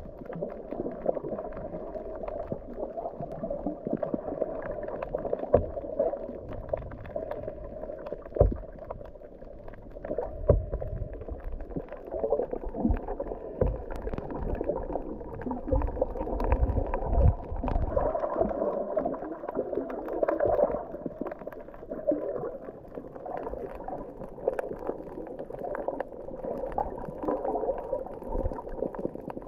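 Muffled underwater noise from a camera held below the surface: a steady dull rushing and gurgling of water, with several low thumps in the middle.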